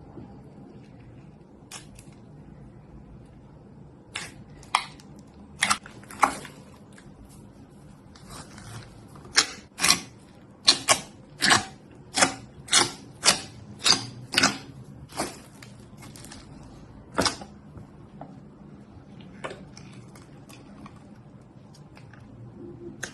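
Slime being pressed and worked by hand, giving a string of sharp popping clicks as trapped air bursts. They come a few at a time at first, then quickly, about two a second, for several seconds in the middle, then thin out again.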